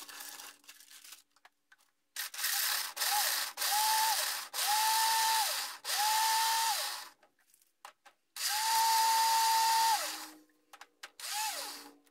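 Countertop blender pulsed in short bursts to chop peanuts, the motor whine rising as each burst starts and dropping as it stops, with the nuts clattering in the jar. About five quick pulses are followed by a longer run of about a second and a half, then one last brief pulse.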